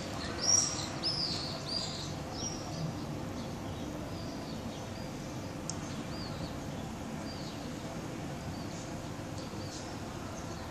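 Bird chirping: a quick series of short, arching high calls, loudest in the first three seconds and then fainter and more spread out, over a steady low background rumble.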